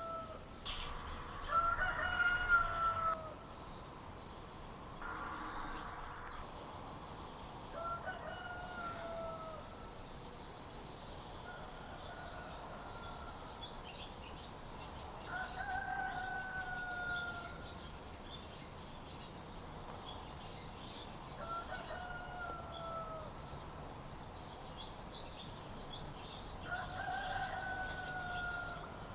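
A bird calling over and over, a drawn-out, slightly falling note about six times, roughly every five seconds. Brief rustling from close handling comes a second or two in and again around five seconds.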